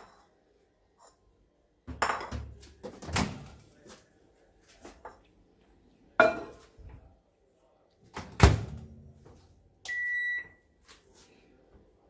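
Microwave oven being loaded: several sharp knocks and thuds as the door is opened, a ceramic bowl is set inside and the door is shut, then a single beep near the end as it is set to run.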